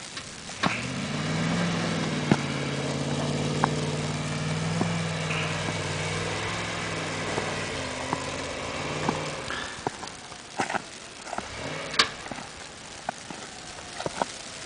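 A motor vehicle's engine running steadily for most of the first nine seconds, then fading away, with scattered sharp clicks and knocks.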